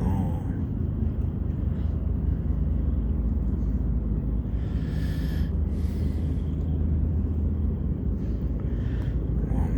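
Steady low rumble with a brief hissing swell about five seconds in.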